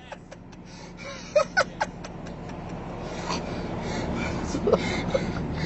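A few quick laughs over car engine and road noise that grows steadily louder.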